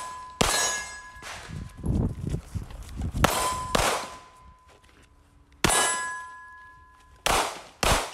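Handgun shots fired at an irregular pace, about six or seven in all, several of them followed by a ringing tone lasting a second or two from a struck steel target.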